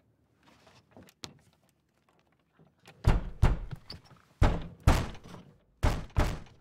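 A child banging on a door she cannot open, trying to get out. After a few faint clicks, heavy thuds start about three seconds in and come in pairs, one pair about every second and a half.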